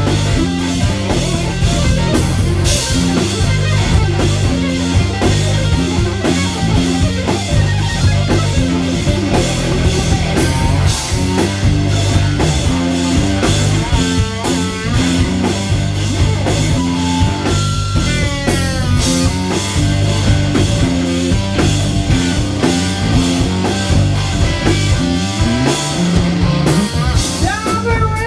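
Live rock band playing: a Telecaster-style electric guitar played loud over a drum kit and a steady low bass line.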